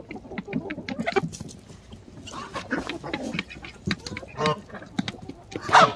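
Dry leaf litter rustling and crackling as eggs are picked up by hand from a nest, with short poultry calls, two of them in the second half.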